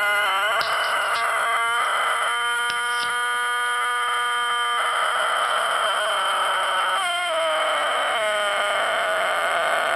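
Tôtenkô rooster giving a long drawn-out crow, held on one steady pitch for a couple of seconds midway, with the pitch wavering and dipping near the start and again around seven and eight seconds in.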